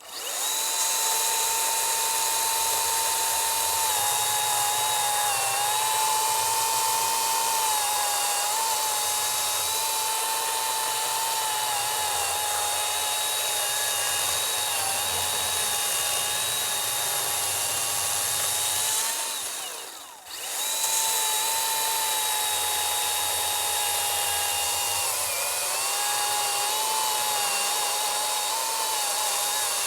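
Milwaukee M18 cordless top-handle chainsaw with a 14-inch bar, its electric motor running with a steady whine as it cuts through a large log, the pitch sagging under load now and then. It stops briefly about two-thirds of the way through, then starts again and keeps cutting.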